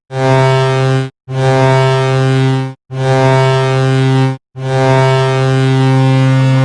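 Las Vegas Golden Knights hockey goal horn, sounded to mark a goal: a loud, deep, steady horn tone in repeated blasts with short gaps. Three blasts of about one to one and a half seconds each are followed by a long held blast starting about four and a half seconds in.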